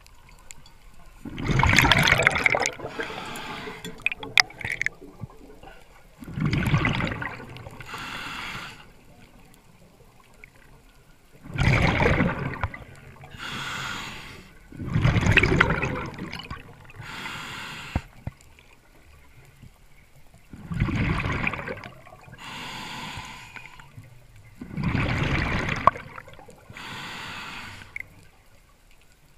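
Scuba diver breathing through a regulator underwater: about six loud, gurgling gushes of exhaled bubbles, each followed by the softer hiss of the demand valve on the inhale, in a slow cycle every four to five seconds.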